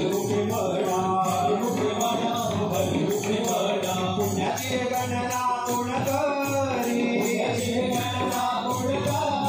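Group singing of a devotional bhajan, several voices together over a fast, steady beat of metallic jingling hand percussion and drum.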